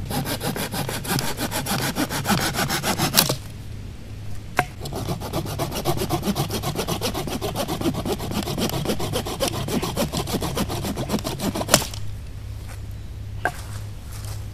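Small hand saw cutting a dry branch laid across a log, in quick back-and-forth strokes: a burst of about three seconds, a brief pause, then about seven seconds more. The strokes end in a single sharp crack.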